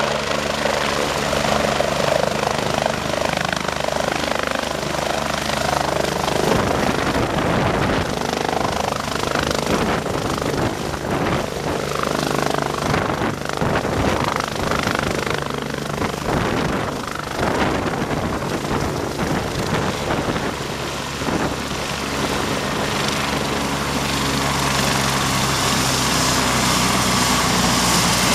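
MBB/Eurocopter BK 117 twin-turbine rescue helicopter settling from a hover onto its helipad, its main rotor chopping and turbines running. A rushing, gusty stretch fills the middle. Near the end the steady turbine whine stands out more as the helicopter runs on the pad with its rotor still turning.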